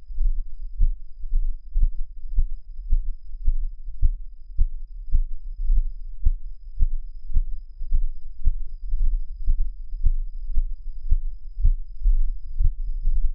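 Footsteps of the walking camera-wearer, thudding through a body-worn action camera about twice a second over a steady low rumble.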